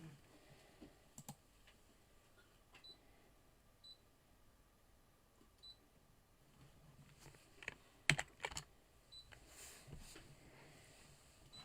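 Faint, scattered clicks and taps, with a few very short high beeps as the touchscreen of a Brother ScanNCut cutting machine is pressed to pick and load a built-in design. A cluster of louder clicks comes about eight seconds in.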